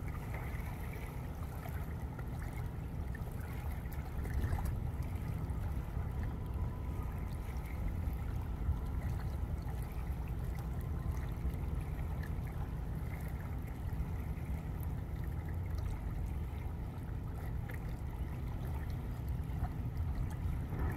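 Steady outdoor ambience at a river's edge: a low, fluctuating rumble of wind on the microphone, with river water trickling and lapping at the shore.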